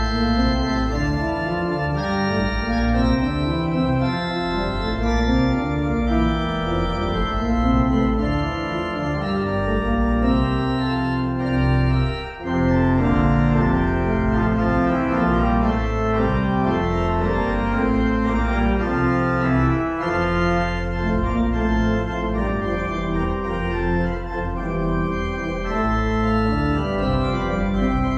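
Organ playing slow, sustained chords that move from one to the next, with a brief break about twelve seconds in.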